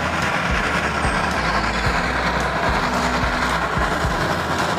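Steam locomotive hauling a train of freight cars: a steady noise of exhaust steam and running gear, with low thumps about a second apart.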